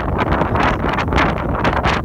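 Wind buffeting the microphone on the deck of a ferry under way: a steady loud rushing with quick gusts.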